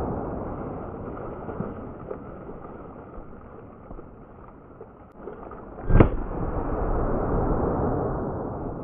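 .44 Magnum revolver firing a single shot about six seconds in, over a steady rushing background noise.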